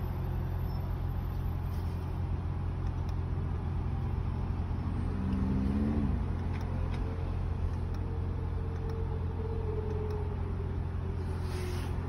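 2010 Toyota Prius's freshly replaced 1.8-litre four-cylinder petrol engine idling steadily while the car stands still, heard from inside the cabin.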